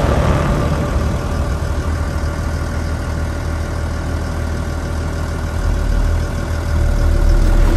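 An engine running steadily at idle, a low rumble with a faint steady hum above it, growing a little stronger near the end.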